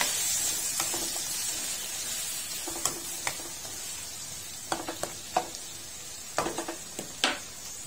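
Chopped tomatoes, onion, garlic and ginger sizzling in a non-stick wok while a plastic spatula stirs them, with sharp scrapes and taps against the pan, most of them in the second half. The sizzle slowly dies down.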